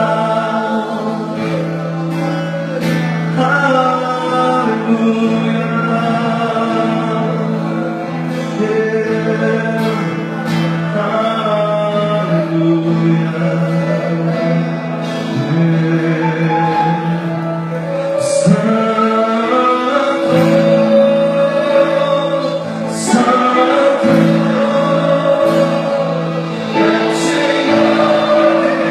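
Church worship music: voices singing a slow gospel song over held, sustained chords.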